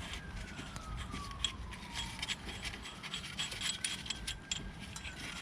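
A distant siren wailing slowly, its single tone falling, rising again and falling once more. Faint scattered clicks sound alongside it.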